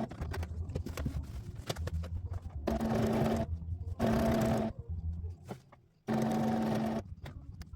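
Domestic sewing machine running in three short bursts of under a second each, with a steady motor tone, and scattered clicks between the bursts.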